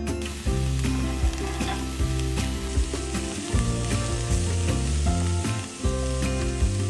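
Diced onion and garlic sizzling in a hot nonstick frying pan while a wooden spatula stirs and scrapes through them, over background music.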